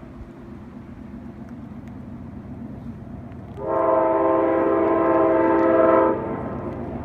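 Amtrak passenger locomotive's horn sounding one long blast, a chord of several tones held for about two and a half seconds, starting about three and a half seconds in. Under it the low rumble of the approaching train grows louder.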